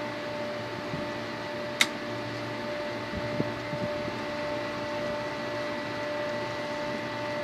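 Steady hum of running machinery with several held tones. A single sharp click comes about two seconds in, and a few light knocks follow a second or two later.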